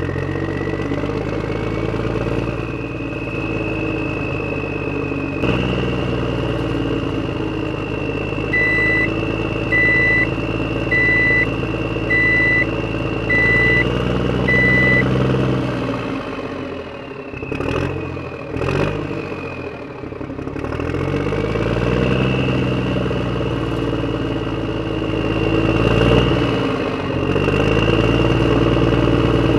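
Engine sound of an RC construction vehicle running steadily with a high whine, its revs dropping and climbing again about two-thirds of the way through. Six short, evenly spaced beeps sound in the middle.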